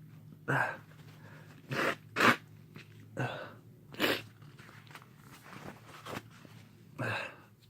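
A man's induced sneezing fit: a run of about six short, sharp sneezes and breaths, the loudest a pair about two seconds in, with a last one near the end.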